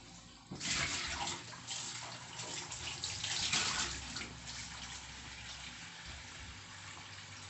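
Running water that starts abruptly about half a second in, is loudest for the first few seconds, then runs on more quietly.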